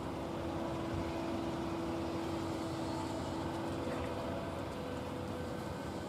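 ACA Howler electronic horn siren sounding a steady low tone made of several held pitches, the lower pitch fading and a higher one growing stronger over the second half.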